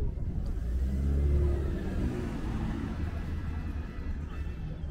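A motor vehicle passing close by on the street, its engine swelling to loudest about a second in and then fading away.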